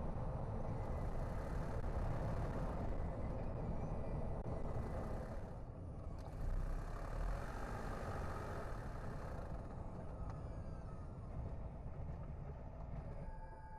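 A car driving on the road: steady low rumble of tyres and engine, with a higher hiss that swells and fades twice.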